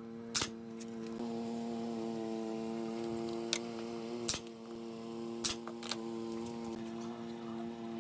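Pneumatic F30 brad nailer firing brads into the corners of a mitred pallet-wood frame: sharp single shots, one just after the start and a cluster of four or five between about three and a half and six seconds in, over a steady background drone of held tones.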